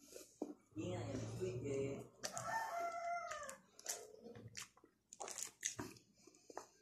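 A rooster crowing once, starting about a second in and lasting nearly three seconds in two parts, the second rising then falling in pitch. A few short clicks follow near the end.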